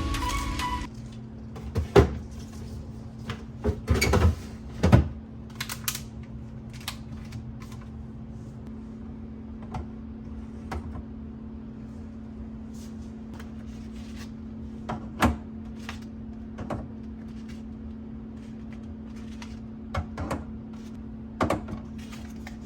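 Scattered knocks, clicks and clatter of household items being handled while cleaning in the kitchen, with the loudest knocks about 2, 5, 15 and 21 seconds in, over a steady low hum.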